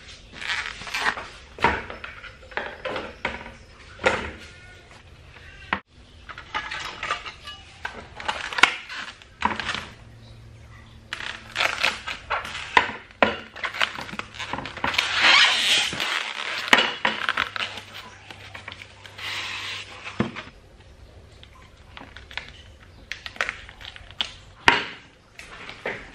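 Kitchen handling sounds: a plastic bag on a foam tray crinkling and rustling as it is cut open, with a busy rustle about halfway through, among many clicks and knocks of dishes and utensils on a tiled counter.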